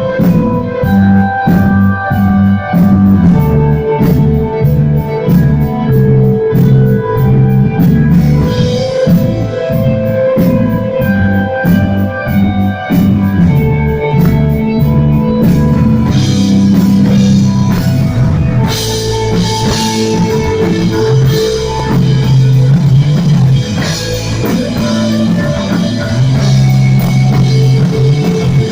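Instrumental rock: electric guitar lines over bass and a drum kit, with steady cymbal ticks through the first half.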